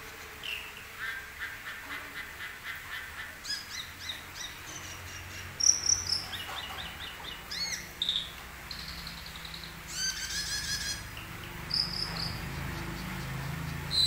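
Caged cucak keling, a glossy green-black starling, singing a rapid, varied song of short chirps, trills and whistles, with its loudest notes about halfway through.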